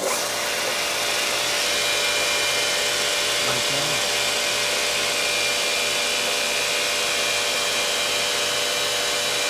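Wotan 200/15-16 heavy-duty internal grinder running: a steady hiss with several whining tones over it, coming in suddenly and then holding level.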